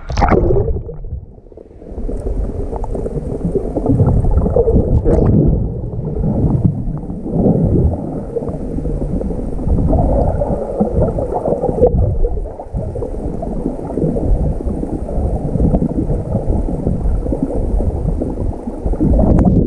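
Muffled, continuous water noise picked up underwater while swimming: gurgling and sloshing, dull and low, with little high sound.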